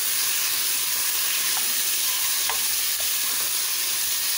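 Diced potatoes sizzling as they sauté in hot oil with whole spices, stirred with a wooden spoon. There is a steady frying hiss, with a few light knocks of the spoon against the pot.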